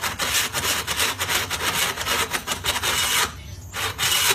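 Rough, rapid rasping on wood, breaking off about three seconds in and starting again half a second later.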